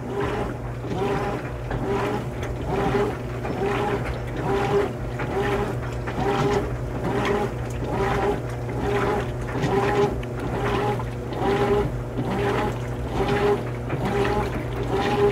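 Top-loading washing machine agitating a sudsy load of clothes: the motor whines in short, even strokes about twice a second, over churning water and a steady low hum.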